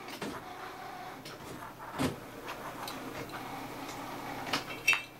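Faint handling sounds of a thin wire being poked through a hole in a finned aluminium heatsink: light rustling and scraping with a few small clicks and knocks, the loudest about two seconds in and just before the end.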